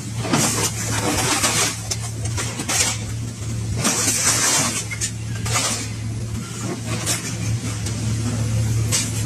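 Hydraulic excavator's engine running steadily, with irregular bursts of metallic scraping and hiss as its claw attachment digs through scrap metal.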